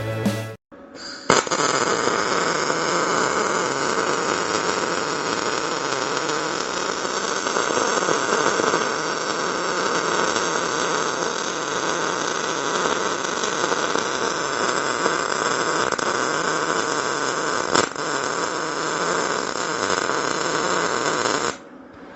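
MIG welder laying one continuous weld bead: a steady crackling hiss of the arc. It starts with a sharp click about a second in, has a brief pop near the end, and stops abruptly about twenty seconds later.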